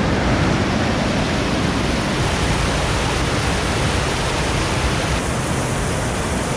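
A fast-flowing creek rushing over rocks: a loud, steady roar of white water.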